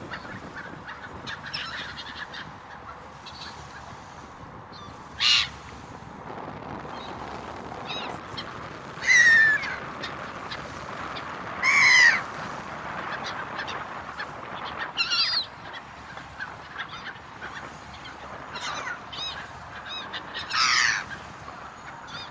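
Gulls crying around a moving ferry: loud, short calls every few seconds, several sliding down in pitch. Under them is a steady wash of water and boat noise.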